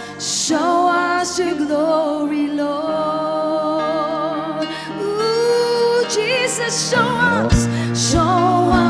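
Live worship music: a singer holding long notes with vibrato over sustained keyboard-like chords. About seven and a half seconds in, a low bass and a kick drum come in with a steady beat.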